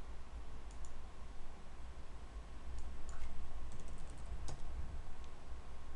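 Computer keyboard keystrokes and mouse clicks, scattered and faint, most of them bunched about halfway through, over a steady low hum.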